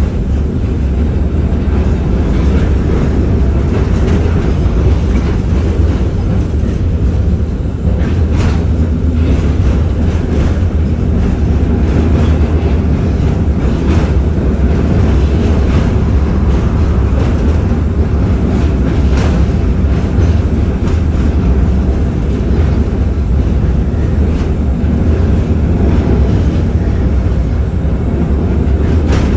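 Cabin noise of an LM-99AVN tram in motion: a steady low rumble of its wheels running on the rails, with a few sharp clicks now and then.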